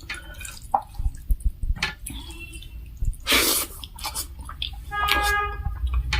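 Close-up eating sounds: chewing and small clicks, with a louder noisy burst about three seconds in and a short pitched tone near the end.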